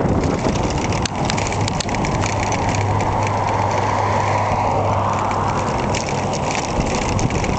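Wind rushing over the microphone on a moving bicycle, with scattered clicks. A steady low hum sits under it for a few seconds in the middle.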